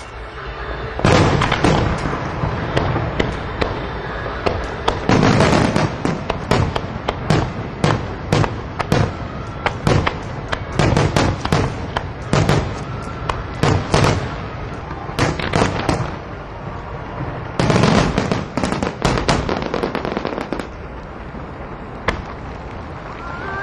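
Fireworks display: many bursts in quick succession, coming in dense volleys, dying down about twenty seconds in.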